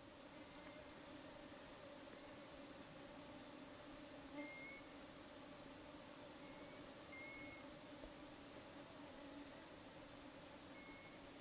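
Faint steady insect hum throughout, with scattered short high bird chirps.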